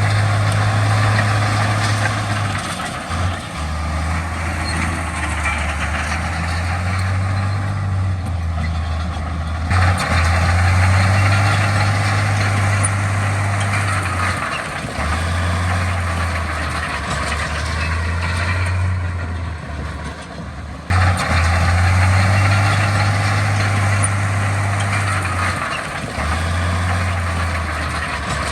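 Diesel engines of heavy earthmoving machinery running under load, a deep, steady rumble with a wide mechanical din, changing abruptly twice.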